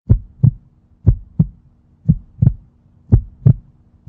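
Heartbeat sound effect: pairs of low thumps in a lub-dub rhythm, about one pair a second, four pairs in all, over a faint steady hum.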